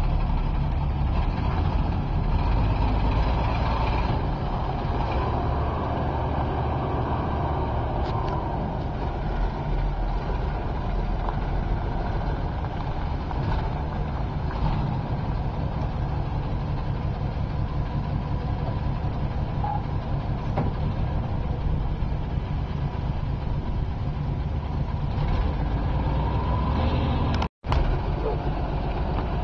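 Bucket truck's engine running steadily, a deep continuous rumble, broken by a momentary gap near the end.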